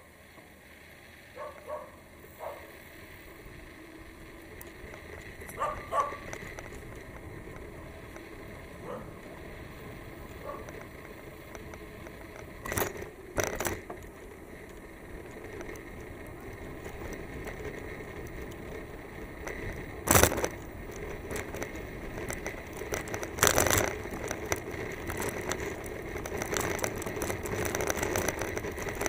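Bicycle riding along, with a steady rush of tyre and wind noise that grows louder in the second half, and scattered sharp clicks, knocks and rattles from the bike, the loudest about twenty seconds in.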